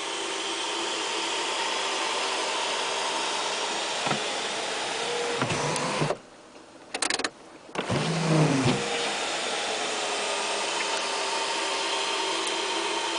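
Electric drive of a VW panoramic sliding sunroof running with a steady whir as the roof travels; about six seconds in it stops with a couple of clicks, then starts again with a short squeak. The roof squeaks and jerks, a fault that repeated dealer repairs have not cured.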